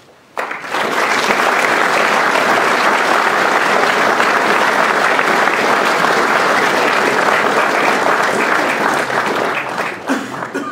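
Audience applauding, starting suddenly about half a second in, holding steady, and thinning out near the end.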